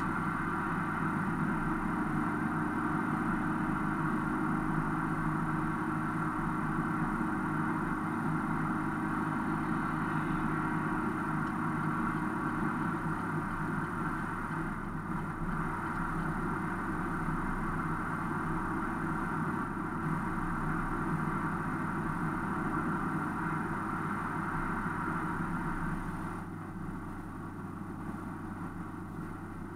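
Steady driving noise of a car at highway speed, heard from inside the cabin: engine and tyre-road noise, easing off slightly near the end.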